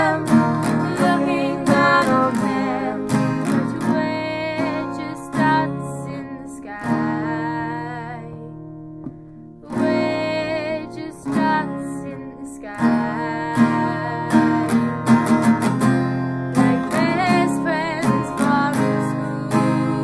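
A song played on acoustic guitar, strummed and picked, with a female voice singing in places. It thins out to a quieter stretch about halfway through, then the full strumming returns.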